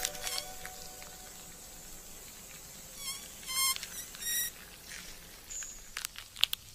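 A fly trapped inside a closed Venus flytrap leaf gives three short, high, wavering buzzes about three to four and a half seconds in as it struggles, followed by a few faint clicks near the end.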